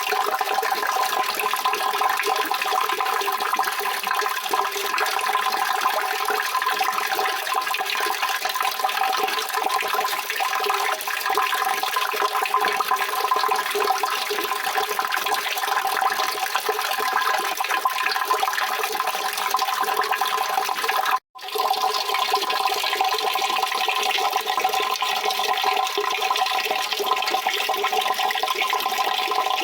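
Steady rushing water, a continuous even wash with no change in strength. It drops out for a split second about two-thirds of the way through, then resumes unchanged.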